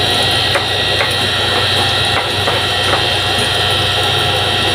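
Stone pestle knocking and grinding in a volcanic-stone molcajete as salsa is mashed: a handful of sharp stone-on-stone knocks in the first three seconds, over a steady high hiss and low hum.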